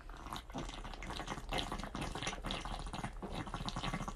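A person chugging a drink straight from a can: a run of quick, irregular gulps with liquid gurgling in the can.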